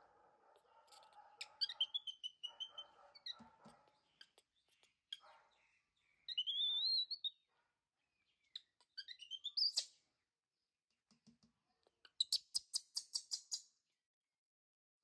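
Baby macaque giving high-pitched squeaks and chirps, some rising in pitch, with a quick run of sharp chirps about twelve seconds in.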